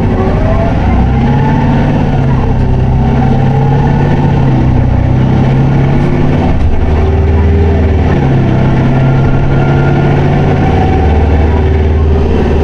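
Isuzu Erga city bus's diesel engine heard from inside the bus, pulling in fourth gear. The engine note eases off briefly a little past halfway, then pulls again.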